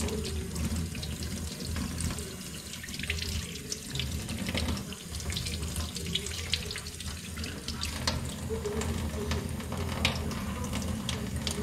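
Kitchen tap running steadily into a stainless-steel sink, with small anchovies being rinsed by hand under the stream and water splashing off fingers and fish.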